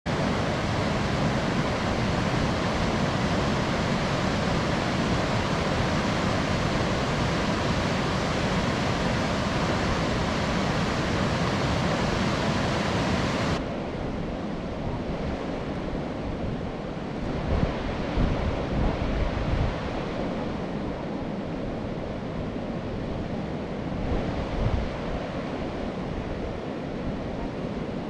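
Swollen river water rushing steadily over a low weir. About halfway through, a cut brings a quieter, more distant rush, with wind buffeting the microphone in a few gusts.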